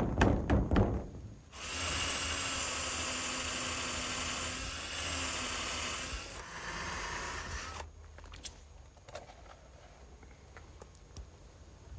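A few knocks as the strip is handled, then a power drill-driver running for about six seconds as it drives screws, its pitch shifting a couple of times, followed by faint handling ticks.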